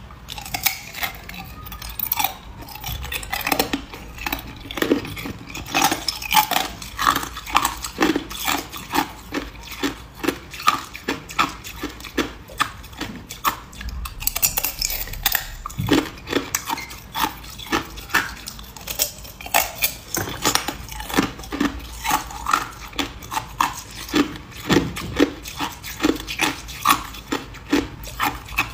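A person biting and chewing hard clear ice, a steady run of sharp cracks and crunches, often two or more a second.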